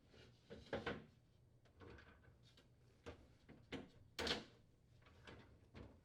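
Refrigerator interior parts (glass shelf panels and plastic frames) being set back into place: a series of faint, separate knocks and sliding scrapes, the loudest a little past four seconds in.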